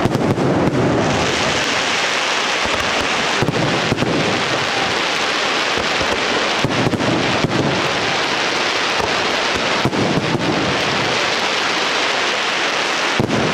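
Fireworks barrage: a dense, continuous crackle from masses of bursting shells and glittering stars, with many sharp bangs running through it.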